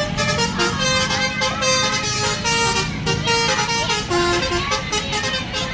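A bus's Basuri 'telolet' musical horn playing a quick tune of short notes that step between pitches, over the low running of the bus engine.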